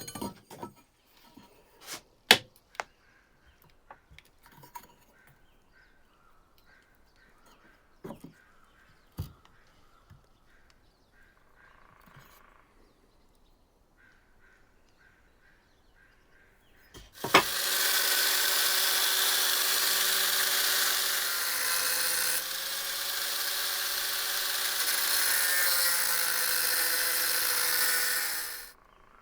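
Scattered clicks and knocks of metal tools being handled, then a handheld power tool that starts about 17 seconds in and runs steadily with a hiss for about eleven seconds. Its pitch dips slightly partway through, and it stops suddenly near the end.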